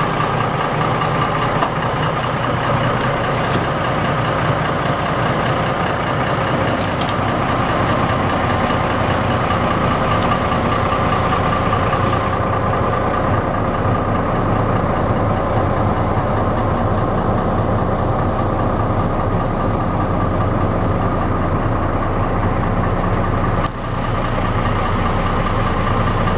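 A boat engine idling with a steady drone and hum that does not change.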